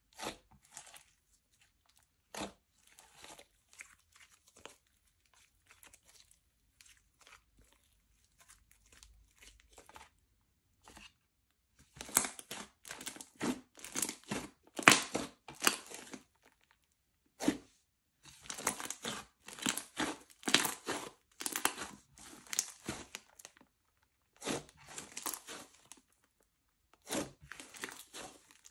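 Slime being worked by hand, crackling and popping as it is stretched and folded: faint, scattered clicks at first, then from about twelve seconds in, louder, dense bursts of squishy crackling.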